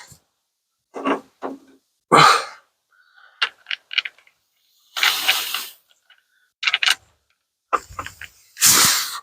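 Tool handling under a truck: a clank about two seconds in, a few short knocks, and two short bursts of noise lasting under a second each, which fit a cordless impact wrench being tried on a rear shock mount nut that won't come loose.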